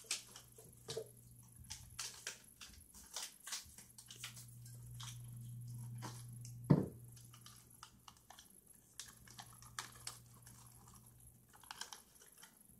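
Plastic snack wrapper crackling and rustling in scattered small clicks as it is handled and opened. One short squeak falls in pitch about halfway through.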